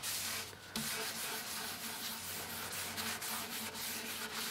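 Cloth rag rubbing back and forth over the wooden lid of an antique cedar chest, wiping alcohol across an old shellac finish that it softens and dissolves.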